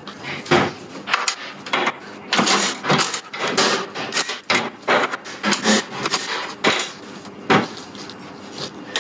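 Hard plastic trim and the front-trunk tub of a Tesla Model S being handled and worked loose by hand: irregular knocks and clatter with rubbing and scraping between them.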